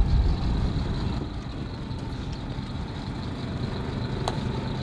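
A boat's motor running steadily with a low drone, and a single sharp tick about four seconds in.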